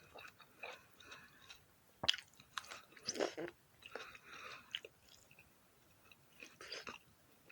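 Close-miked biting and chewing of crisp black sapphire grapes: sharp bites about two seconds in and again near the end, with wet crunching chews in between.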